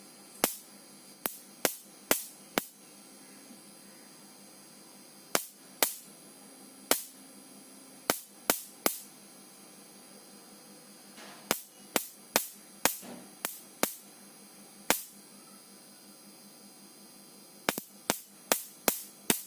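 Repaired electric mosquito killer's high-voltage grid arcing: about two dozen sharp snaps at irregular intervals, some in quick clusters, over a faint electrical hum.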